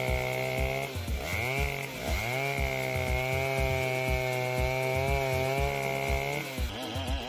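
Chainsaw running at high revs while cutting, its pitch sagging briefly twice in the first two seconds and then holding steady. It cuts off about a second before the end.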